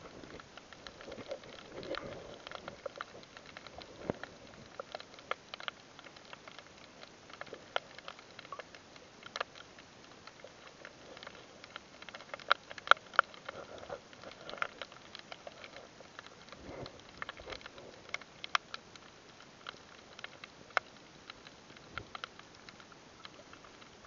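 Underwater crackle: irregular sharp clicks and pops over a faint steady hiss, coming thickest about halfway through, with a few soft low swells of water movement.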